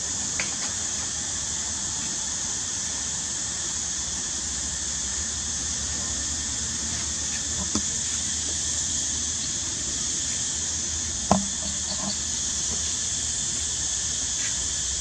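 Steady high-pitched outdoor hiss, with a few faint short taps, the sharpest about eleven seconds in.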